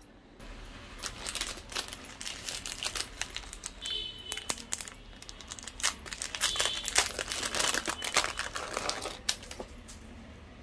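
Thin plastic jewellery packet crinkling and crackling as it is handled and opened, while a gold-plated bead necklace is drawn out of it. It starts about half a second in with a quick run of crackles and dies down shortly before the end.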